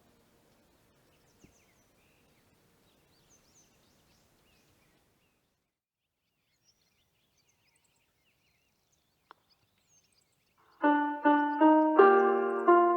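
Near silence with a couple of faint clicks for about ten seconds, then an outdoor public-address loudspeaker of a village disaster-prevention radio system starts playing the noon chime: a school-song melody in a piano-like electronic tone, note after note.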